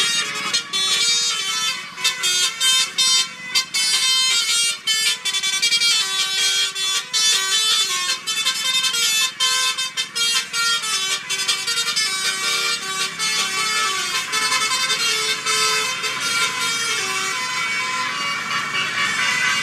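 Indonesian bus 'telolet' multi-tone air horn playing a tune of stepped notes, sounding in repeated phrases with short breaks.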